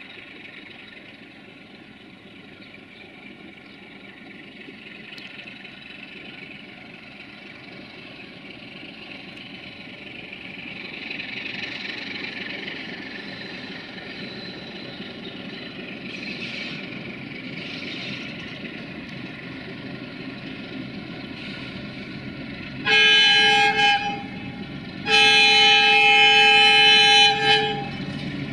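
Electroputere LDE2100 (060-DA) diesel-electric locomotive, with its Sulzer V12 two-stroke diesel, running towards the listener with a freight train, engine and wheel noise growing louder. Near the end the horn sounds: a short blast, then a longer one of about two and a half seconds.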